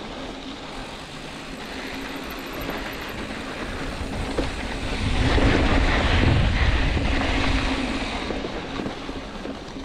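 Mountain bike tyres rolling over loose gravel and dirt on a rough trail, with wind rushing over the camera microphone. The rumble and wind grow louder about five seconds in, as the bike picks up speed, then ease off a little near the end. A faint steady hum runs underneath.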